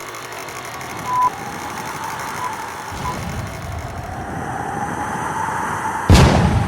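A few short, high electronic beeps over a steady background noise, then a sudden loud boom about six seconds in.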